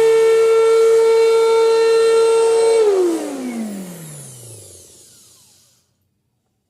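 Vacuum cleaner motor running with a steady high whine, then switched off about three seconds in. The whine falls in pitch and fades as the motor spins down, dying away to silence a few seconds later.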